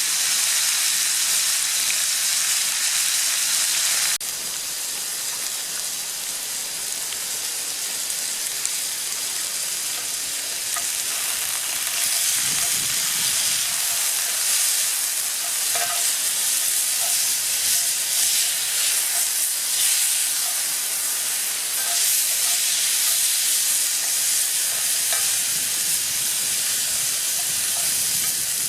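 Beef searing in a hot cast iron skillet over campfire coals, sizzling steadily. The sizzle drops abruptly in level about four seconds in, then builds again.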